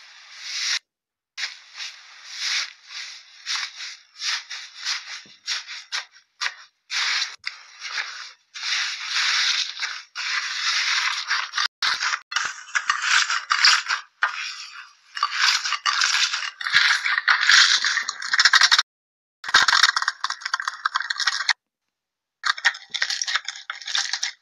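Slime being squeezed, pressed and stretched by hand, giving dense crackling, squishing and popping sounds. It comes in a run of short segments with brief silent breaks between them.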